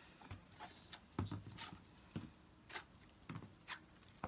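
Black plastic plant pots being picked up and handled, giving a series of light, irregular knocks and clicks.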